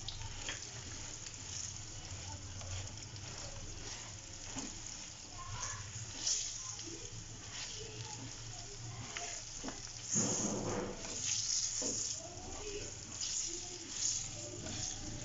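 Boiled potatoes and ground spices sizzling in hot oil in a nonstick frying pan, turned with a silicone spatula, with scattered scrapes and knocks. The stirring is louder for about a second just after ten seconds in.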